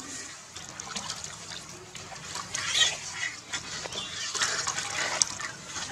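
A baby macaque crying in loud, high-pitched bursts while it is bathed, over water splashing in a plastic basin. The cries are loudest about halfway through and again in the second half.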